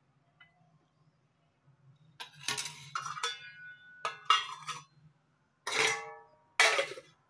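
Stainless steel plates set as lids onto steel pots, clinking and clanking with a metallic ring several times from about two seconds in.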